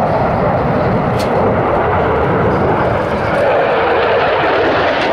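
Steady, loud jet engine noise from a twin-engine delta-wing canard fighter jet flying a display, with a brief click about a second in.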